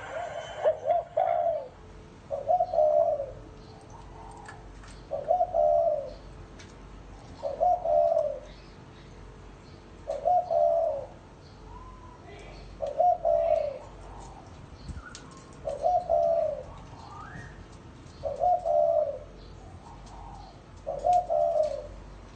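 Spotted dove cooing in the deep 'gù' style, one short coo phrase repeated evenly about every two and a half seconds. Faint chirps from small birds sound between the phrases.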